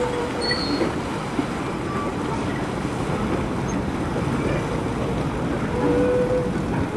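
Steady low rumble of wind on the microphone over outdoor background noise by the water, with no distinct event standing out.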